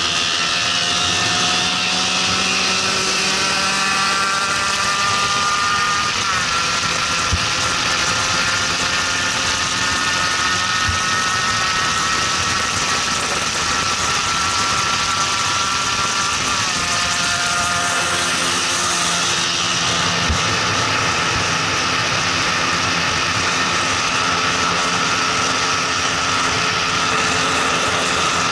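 Onboard sound of a motorcycle riding at speed: the engine runs at steady high revs under a constant rush of wind, with brief shifts in engine pitch about six seconds in and again past the middle.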